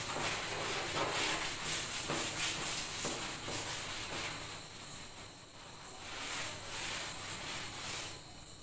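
Board duster wiping chalk off a blackboard in quick back-and-forth strokes, a rhythmic rubbing hiss that slackens about halfway through and picks up again before dying away near the end.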